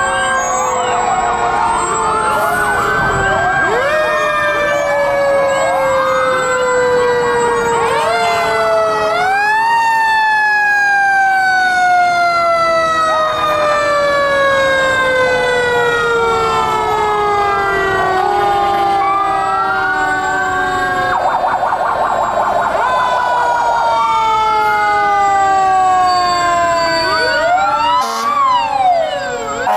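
Several fire engine sirens sounding at once, overlapping. Some rise quickly and then fall slowly over several seconds, others wail up and down, and a fast warbling yelp cuts in for a few seconds past the middle.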